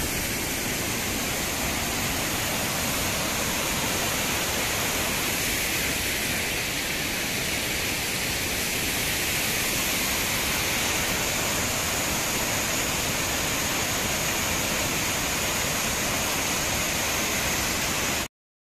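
Steady, even rush of a forest waterfall and its rocky stream, falling water heard up close. It cuts off suddenly near the end.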